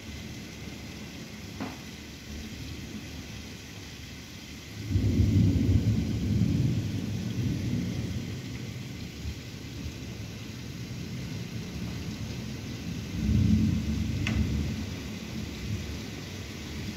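Thunder over steady rain: a low rumble breaks in suddenly about five seconds in and fades over several seconds, and a second, shorter rumble comes later.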